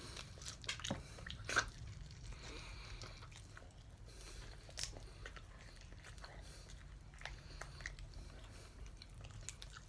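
Faint chewing and biting on whole sauced chicken wings, with scattered wet mouth clicks and small crunches over a steady low hum.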